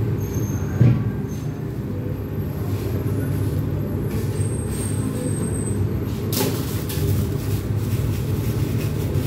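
Steady low machine drone of kitchen equipment, with a single sharp knock about a second in and a short hiss-like noise around six seconds.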